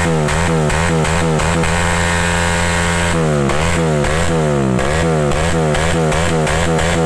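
Bajaj Pulsar 180's single-cylinder engine revved through an aftermarket SC Project exhaust, the throttle blipped over and over so the revs rise and fall a few times a second. The revs are held briefly before the middle, then a quicker string of blips follows.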